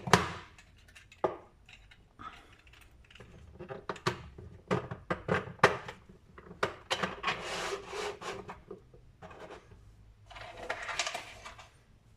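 3D-printed plastic puzzle-box parts being handled and fitted together: scattered clicks and knocks with two longer stretches of scraping as the pieces rub into place.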